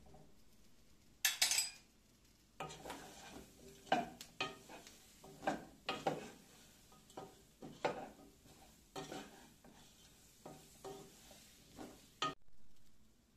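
Wooden spoon stirring chunks of pumpkin, onion and red lentils in a non-stick pot: a run of irregular knocks and scrapes, about one or two a second, that stops shortly before the end. A brief, sharper scrape comes about a second in.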